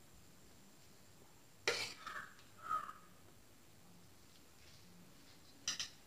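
Steel spoon tapping and scraping as potato filling is spread over rolled dough on a marble rolling board: one sharp tap about a second and a half in with a little scraping after it, and a few quick light clinks near the end as the spoon is lifted away.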